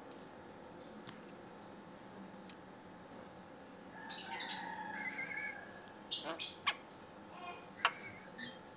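Javan myna calling: after about four seconds of quiet, a run of whistled notes, then several short, sharp squawks.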